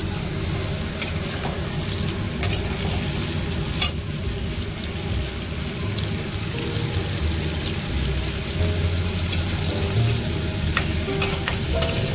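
Food sizzling as it fries in a pan and is stirred, with a utensil clicking against the pan now and then.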